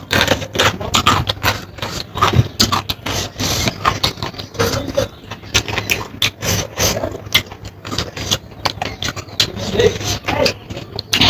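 Close-miked eating sounds: chewing and mouth smacks in a rapid, irregular run of wet clicks, over a steady low hum.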